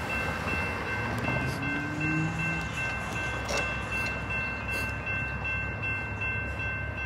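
Railroad grade-crossing warning bell ringing steadily as the crossing signals activate, over a continuous low rumble.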